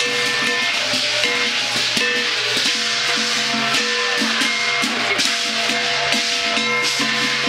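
Chinese festival percussion for a costumed beast dance: a big drum and other struck percussion beating without a break, with a melody instrument holding and changing notes over it.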